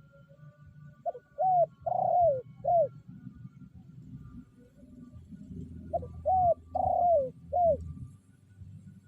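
Spotted dove (tekukur) decoy bird cooing loudly and close, in two phrases of four notes each about five seconds apart, the third note of each phrase the longest. It is the territorial call meant to bring rival males in.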